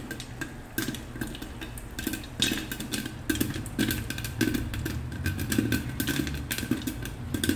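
Black popcorn kernels popping inside a covered pot: rapid, irregular pops against the lid and pot walls, over a low steady rumble.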